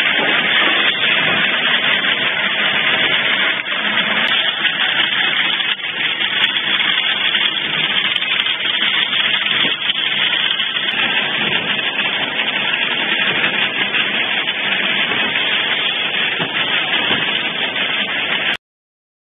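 YA1-20 ampoule ink printing machine running steadily, its motor, drive belts and print rollers turning as glass ampoules feed from the hopper onto the tray conveyor. It makes a dense, even mechanical noise that cuts off suddenly near the end.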